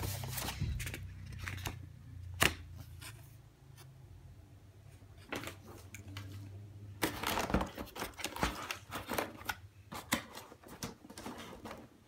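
Cardboard laptop box, its inner tray and paper inserts being handled: scattered rustles and knocks, with one sharp tap about two and a half seconds in and a busy run of rustling and knocking over the last five seconds.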